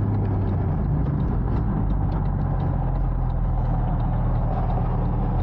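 Porsche 981's flat-six engine running under way with steady road noise. The engine note changes pitch slightly about a second in.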